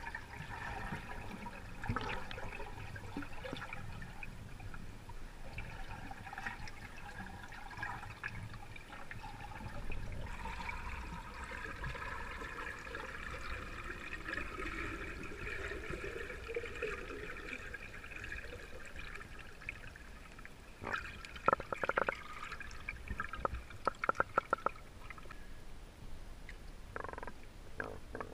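Muffled underwater water noise picked up by an action camera held beneath the surface: swirling and bubbling. Two quick runs of sharp clicks in the last third.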